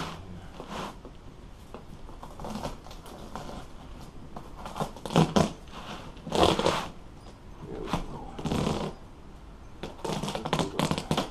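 Boat seat upholstery being pulled apart by hand: vinyl and fabric tearing and crinkling in several short bursts, with a run of quick crackling near the end.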